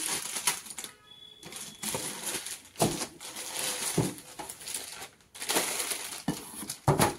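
Plastic wrapping crinkling and rustling as it is pulled off a casserole pot, with several sharper crackles and knocks along the way.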